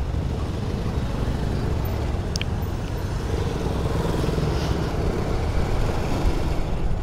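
Motorcycle engine running steadily as the bike rides along, a continuous low rumble; a short high chirp sounds about two and a half seconds in.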